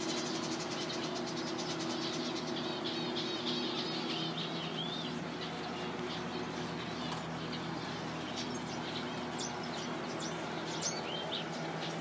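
Small aviary finches chirping: a quick run of short high chirps in the first few seconds, then scattered single chirps. A steady low hum runs underneath for the first half.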